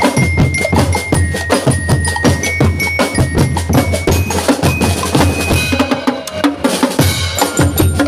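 Drum and lyre band playing a Latin dance beat: bell lyres ringing a melody over a dense, fast pattern of marching snare and bass drums. A cymbal-like crash sounds about seven seconds in.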